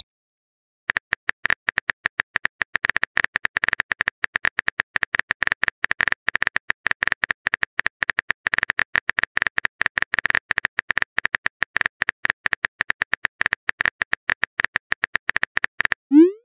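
Simulated keyboard typing from a texting app's sound effect: a fast, steady run of small key clicks starting about a second in and lasting about fifteen seconds. It ends with a short rising pop as the message is sent.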